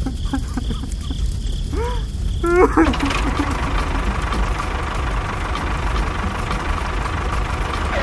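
Tractor engine running with a steady rumble and a faint whine, setting in about three seconds in. Before it, crickets chirp regularly and a short, high, cartoonish voice squeaks.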